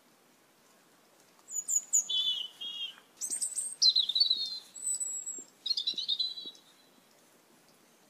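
Asian glossy starlings calling: a quick run of short, high-pitched notes and whistles that starts about a second and a half in and stops about five seconds later.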